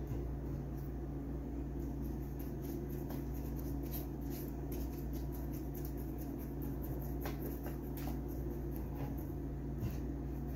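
Faint scratchy dabs of a silicone basting brush spreading olive oil on breaded pork cutlets on a metal baking sheet, over a steady low electrical hum.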